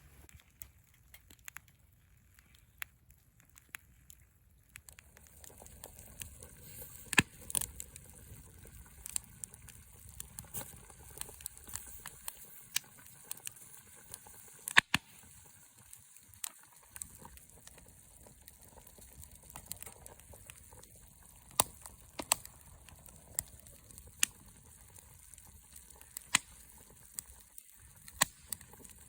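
Wood campfire crackling, with sharp irregular pops over a low hiss; it grows louder about five seconds in.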